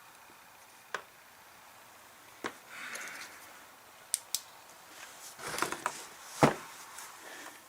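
Scattered sharp clicks, taps and light scraping from hands working on a chainsaw's fuel lines and primer-bulb fittings. The clicks come one by one, then bunch together in the second half, the loudest about six and a half seconds in.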